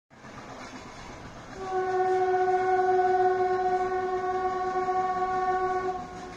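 Train horn sounding one long, steady blast on a single note, starting about a second and a half in and ending near the end.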